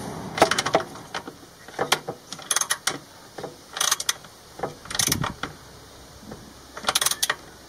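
Socket ratchet wrench clicking in about six short bursts while a nut is run down onto a bolt.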